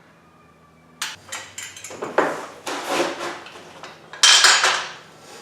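Metal parts of a motorcycle lift clanking and clattering as they are handled and fitted during assembly: a run of knocks starting about a second in, the loudest clatter about four seconds in.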